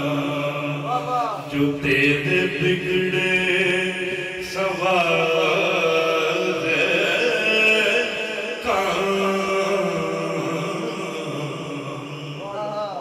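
A man's voice chanting a naat (Islamic devotional poem) slowly, with long held notes and gliding melodic turns.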